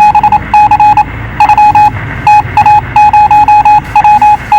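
Rapid electronic beeps of one steady mid-high pitch, loud and in irregular runs of short beeps with brief gaps between them, starting suddenly.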